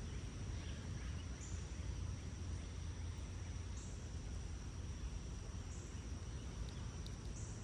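Insects trilling steadily at a high pitch, with a short higher buzz about every two seconds, over a low, steady rumble and hiss of outdoor background noise.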